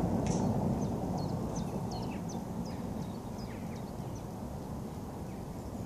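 A low rumble fading away, with a bird calling a quick series of short, high, falling chirps over it.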